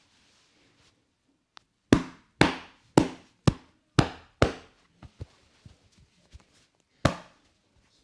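Hands striking a person's back in percussive massage: six sharp slaps at about two a second, then one more a couple of seconds later, with faint lighter taps between.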